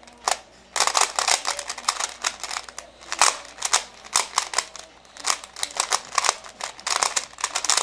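A 3x3 Rubik's cube being turned fast in a speedsolve: rapid plastic clicking and clacking of the layers, with a brief lull near the start before the turning runs on steadily.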